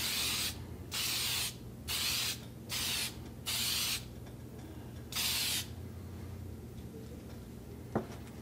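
Aerosol can of sanding sealer spraying in six short hisses of about half a second each, one per pass of a light sealer coat, with a single sharp click near the end.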